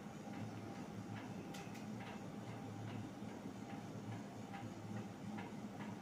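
Panasonic F-EY1511 60-inch industrial ceiling fan running, with a steady, slightly pulsing motor hum and light ticks about once a second.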